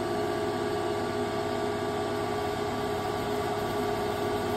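Okamoto OGM 8-20U cylindrical grinder running with its grinding wheel and work head turning: a steady, quiet machine hum with a few held tones, even throughout.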